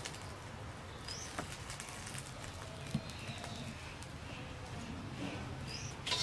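Wood fire crackling in a clay stove as a whole duck is singed over the flames, with scattered faint clicks. A few short bird chirps come through in the background, about a second in and again near the end.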